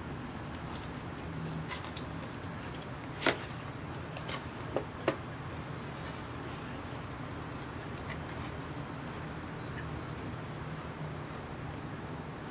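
Flashlight packaging and parts being handled: four sharp clicks and taps in about two seconds near the middle, over a steady low hum.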